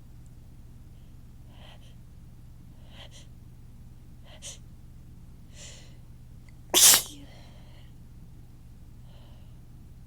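A person's sneeze after a drawn-out build-up: four faint catching inhales, then one loud sneeze a little under seven seconds in, followed by a soft breath. A steady low hum runs underneath.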